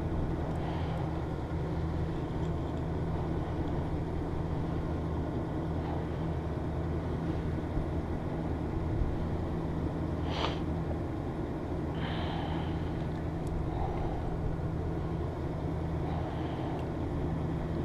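A vehicle engine idling: a steady low hum that holds level throughout.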